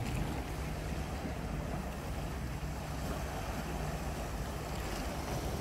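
Sea waves washing against a rocky shore, with wind blowing on the microphone and a steady low hum underneath.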